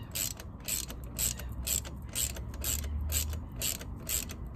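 Ratchet wrench clicking in quick back-strokes, about two a second, as a bolt on a motorcycle's rear brake caliper mounting is tightened.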